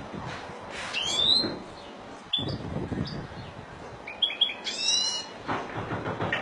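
Caged European goldfinch singing scattered short, bright, gliding notes, with a quick run of several notes about four to five seconds in, over low background noise.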